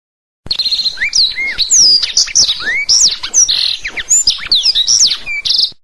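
Blackthroat (black-throated canary) singing a fast, varied song of quick rising and falling whistles mixed with buzzy trills. It starts abruptly about half a second in and cuts off suddenly near the end.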